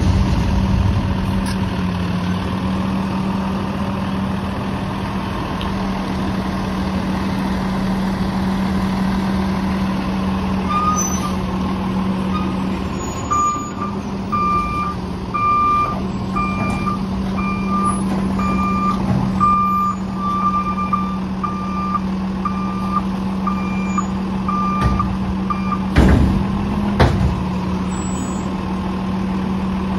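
Heil rear-loader garbage truck's diesel engine running steadily. Its reversing alarm beeps a little faster than once a second from about a third of the way in until near the end. Two heavy clunks follow near the end.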